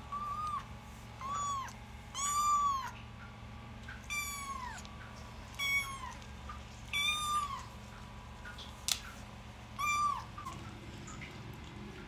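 Cat meowing: seven high-pitched meows, each rising then falling in pitch, spaced a second or two apart, the longest and loudest about two and a half seconds in. A single sharp click about nine seconds in.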